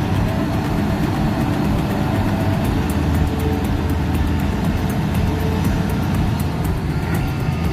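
Heavy machinery engine running steadily at an even speed, with a deep, constant hum.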